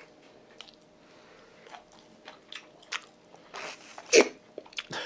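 Close-up eating sounds: chewing and lip smacks with scattered small clicks, then a louder wet suck a little after four seconds as the chopsticks are sucked in the mouth.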